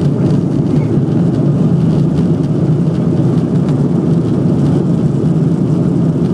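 Jet airliner's engines at takeoff thrust during the takeoff roll, heard from inside the passenger cabin as a loud, steady low rumble.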